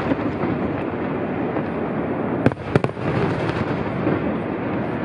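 Aerial firework shells bursting in quick succession: a steady din of explosions, broken by two sharp bangs close together about two and a half seconds in, followed by a few weaker ones.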